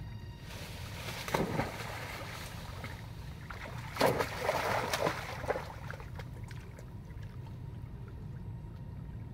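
Monkeys splashing in shallow muddy water: a short splash about a second and a half in, then a longer run of splashing from about four to five and a half seconds, over a steady low background noise.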